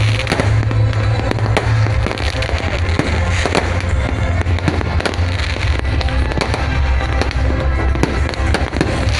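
Fireworks going off in many quick bangs and crackles, over loud music with a heavy bass.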